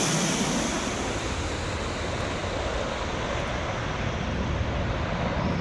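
Jet engines of a low-flying B-1 Lancer bomber on landing approach: a steady, loud roar.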